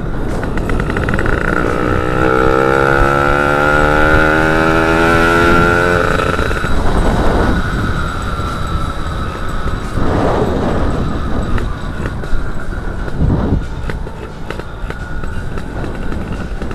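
Yamaha F1ZR two-stroke single-cylinder motorcycle engine heard from the saddle while riding, over wind rush. Its pitch climbs steadily for a few seconds as the bike accelerates, then drops away, with a few short surges of revs later on.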